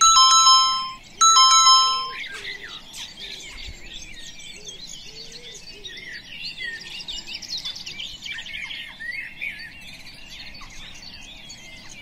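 Timer alarm: a bright chime rings twice in quick succession, each ring about a second long, loud over everything else. Then songbirds chirp busily for the rest of the time.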